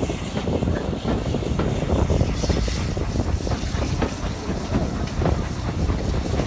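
Heritage railway carriage running along the track, heard from an open window: a steady rumble of the wheels on the rails with frequent irregular clicks and knocks.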